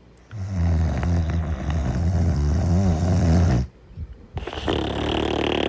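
Animated cartoon dog snoring: one long, low snore lasting about three seconds, a brief pause, then a softer, breathier snoring breath starting near the end.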